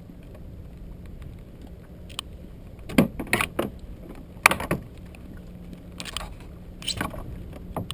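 Fishing rod and tackle knocking and clattering against a plastic kayak as the rod is handled: several short, sharp knocks, the loudest about three and four and a half seconds in, over a steady background hiss.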